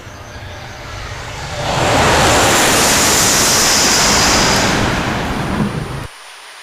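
Shinkansen bullet train passing through a station at high speed without stopping: a rushing roar that builds over about a second and a half, holds loud for about three seconds with a thin high whine on top, then tapers and cuts off suddenly near the end.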